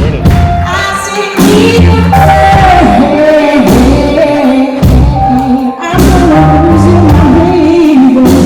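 Live rock band playing a song loudly: a sung melody over guitar, bass and drums.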